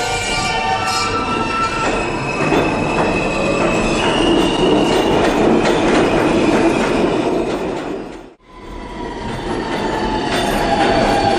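Subway train running, with a dense rumble of wheel noise and high steady whines. About eight seconds in it cuts off abruptly, and a second train sound begins with one whine that slides slowly down in pitch.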